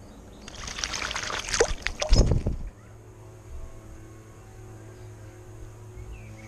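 Eurasian blackbird bathing in a shallow garden birdbath: about two seconds of vigorous splashing as it flicks water with its wings, which stops abruptly. A low steady hum follows.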